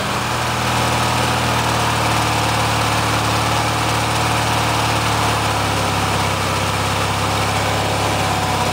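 A 16 HP Briggs & Stratton horizontally opposed twin-cylinder engine in a 1993 MTD Yard Machines lawn tractor, running steadily just after a cold-weather first start. Its note shifts slightly about five and a half seconds in.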